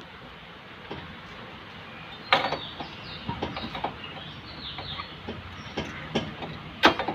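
Scattered metal clicks and knocks of drum-brake parts being handled as the handbrake cable is unhooked from the brake shoe's lever against its spring, the sharpest click about two and a half seconds in.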